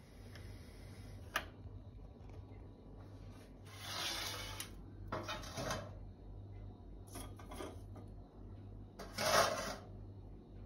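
Metal tongs clinking against a stove's ring stand and handling charcoal briquettes over a lit gas burner: a sharp click, then four short rattling scrapes, the last the loudest, over a steady low hum.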